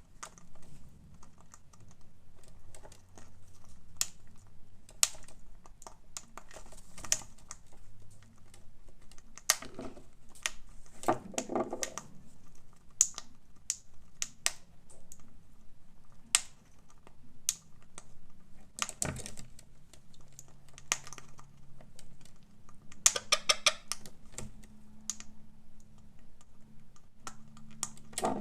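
A parrot's beak cracking and chipping at a walnut shell: irregular sharp clicks and cracks, with a couple of quicker flurries.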